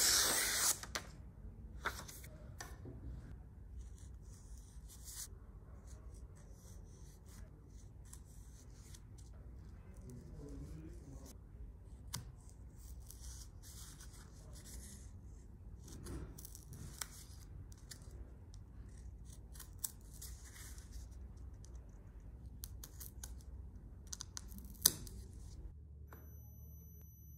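Hand work at a bench: a short hiss at the start, then scattered scraping, rubbing and snipping noises with sharp clicks over a low steady hum. One sharp click near the end is the loudest.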